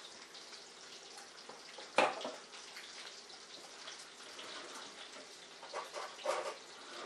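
Bacon sizzling in a frying pan, a steady hiss, with a single sharp knock about two seconds in and a few lighter knocks near the end.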